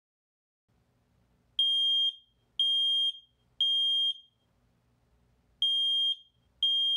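Smoke detector alarm sounding: loud, high-pitched beeps of about half a second each, three a second apart, a pause of about two seconds, then two more starting the next set of three. This is the temporal-three evacuation pattern that signals smoke.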